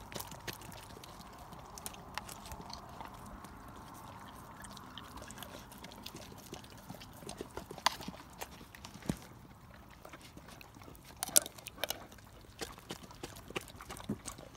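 Irish wolfhound licking and smacking Greek yogurt off a metal spoon, with wet mouth sounds and scattered sharp clicks, the loudest about eight seconds in and again around eleven to twelve seconds.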